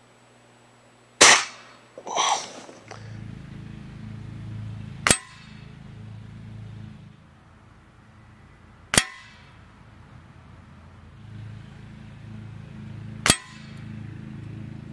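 A Gamo CFX spring-piston underlever air rifle fires: one loud crack about a second in, then a ringing impact. Three more sharp cracks follow about four seconds apart as further pellets strike the target, over a low steady hum.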